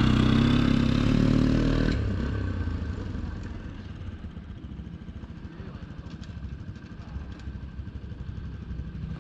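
Motorcycle engine passing close by, loud for the first couple of seconds, then fading away into the distance as the bike rides off up a dirt track.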